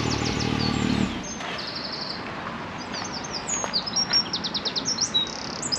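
Can-Am Maverick X3 Turbo RR's turbocharged three-cylinder engine idling, then switched off about a second in. Birds then chirp and trill repeatedly, with short, rapid high-pitched phrases.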